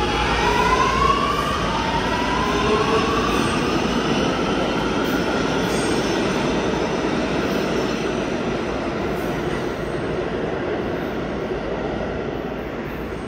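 New York City Subway R211A train pulling out: a motor whine rises in pitch over the first few seconds as it gathers speed, then gives way to a steady rumble of wheels on rail as the cars pass, easing slightly near the end.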